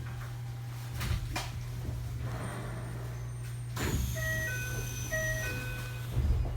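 Steady low hum of a stopped electric train, broken by a few sharp knocks. About four seconds in, a short electronic chime melody of clear, evenly spaced high notes starts and repeats its phrase.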